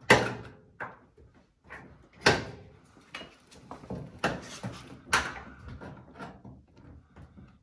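Sharp knocks and clunks of dryer cabinet parts being pushed and pried loose by hand, with lighter clicks and rattles between. The loudest knock comes right at the start, and others follow about two, four and five seconds in.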